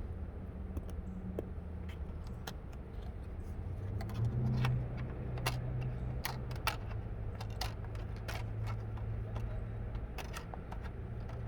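Scattered light clicks and rattles from handling parts in a car, over a steady low hum that gets stronger about four seconds in.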